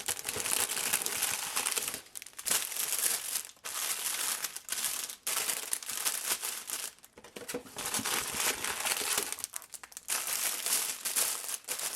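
Biscuit packaging crinkling and rustling as the biscuits are handled and moved into a plastic container, in several stretches with short pauses between them.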